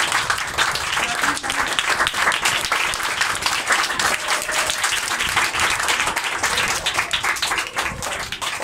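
A group of people applauding, many hands clapping steadily.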